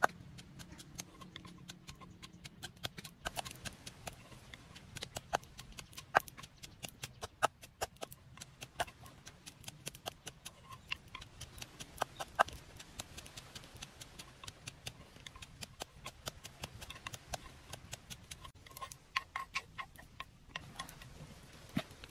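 Wooden pestle pounding ingredients in a large wooden mortar: repeated sharp, hollow knocks at an uneven pace of about two or three a second.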